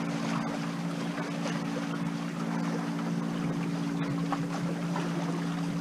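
Corsair F-27 trimaran under sail: water rushing along the hulls with some wind noise, over a steady low hum of several held tones.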